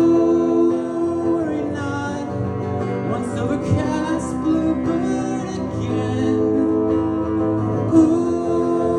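A solo performer singing with acoustic guitar, live; a long held sung note opens the passage and another comes near the end.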